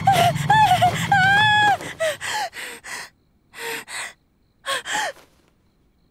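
A person gasping for breath several times in short breathy pairs, some with a falling catch of voice. In the first couple of seconds, overlapping raised voices over a low hum cut off before the gasps.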